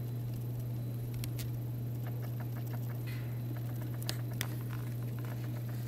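A steady low hum with scattered light clicks and crackles over it, and a few sharper ticks about four seconds in.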